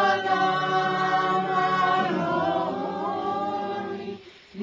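Choral singing in the video's music bed: voices holding long notes, with some of them moving in pitch about halfway through, then stopping shortly before the end.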